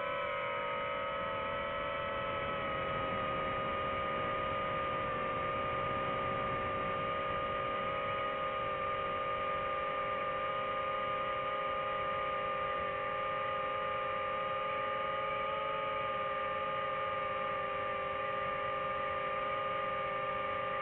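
DJI FPV quadcopter's motors and propellers whining steadily in flight as several held tones; the pitch eases down over the first two seconds or so, then holds level.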